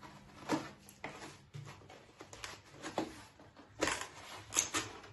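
Cardboard box being cut open with a plastic box cutter: a series of short, sharp scrapes and clicks, the loudest a little under four seconds in and again near the end.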